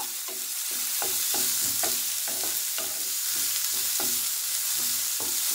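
Chopped onions and chana dal sizzling in hot oil in a nonstick kadai, stirred with a spatula that scrapes across the pan about twice a second.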